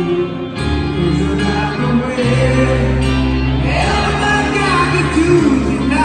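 A live rock ballad played on piano with bass and band, with singing over it. The low notes are held and the voice line bends in pitch.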